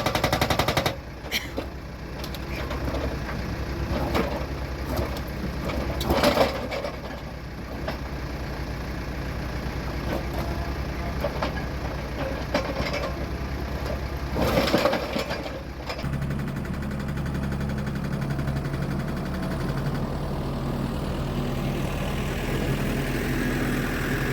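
Excavator-mounted hydraulic breaker hammering rock: a rapid, continuous stream of blows over the excavator's engine, with a few louder surges. About 16 seconds in the hammering stops and the engine runs on steadily.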